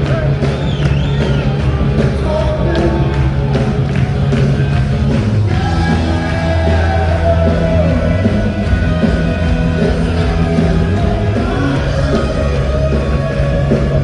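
Rock music with singing, played loud and steady.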